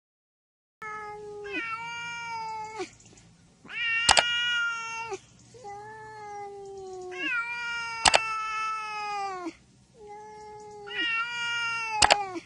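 A cat meowing over and over in long, drawn-out calls, each held and then falling in pitch at its end. A sharp click comes about every four seconds.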